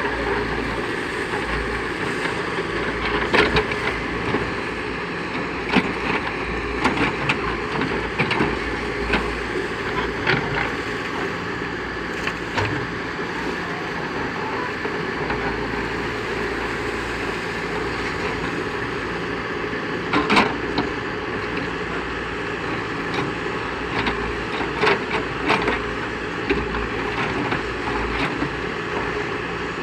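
Diesel engine of a backhoe loader running steadily under work, with scattered sharp knocks and clanks, the loudest about two-thirds of the way through.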